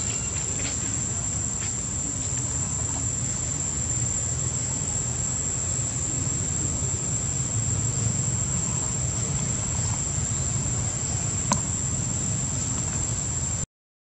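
Steady, high-pitched insect chorus over a low steady rumble, with a faint click about eleven seconds in. The sound cuts out briefly near the end.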